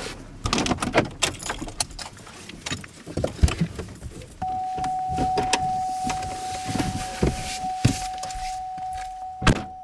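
Clicks, knocks and rustling in a car's cabin as the driver gets out of the seat and opens the door. About four and a half seconds in, a steady single-pitched warning tone from the car starts and keeps sounding, with the door open and the key left in the ignition. There is a sharp loud knock near the end.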